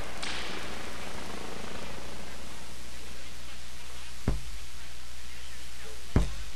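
Steady outdoor noise over a flock of free-range hens in a field, with two sharp knocks, one about four seconds in and one near the end.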